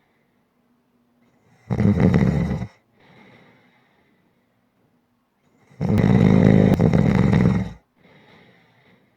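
Snoring: two loud snores, the first about a second long and the second about two seconds, each followed by a softer breath out, with quiet pauses between them.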